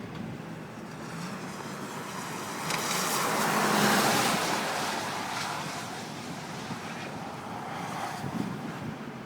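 Highway traffic with wind: a steady rushing hiss that swells as a vehicle passes, loudest about four seconds in, then fades, with a smaller swell near the end.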